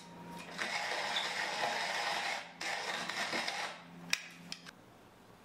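Wooden hand-cranked coffee mill grinding coffee beans: a steady grinding rattle with a short break a little past halfway. It stops after nearly four seconds, followed by a few light clicks.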